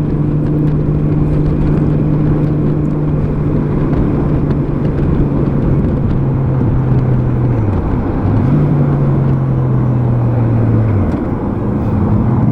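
2003 Honda Gold Wing's flat-six engine running at speed under wind and road noise on the microphone. The engine note falls and dips about seven and a half seconds in, picks up again, then falls away near the end. The engine has a misfire that the owner is chasing.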